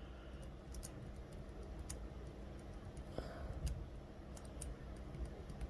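Faint, scattered small metallic clicks of a lock pick working the pins of an Assa euro cylinder lock during single pin picking.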